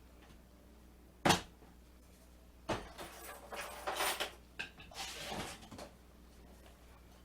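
A loaded welding tool bag and its gear being handled: one sharp click, then about three seconds of rustling and clattering.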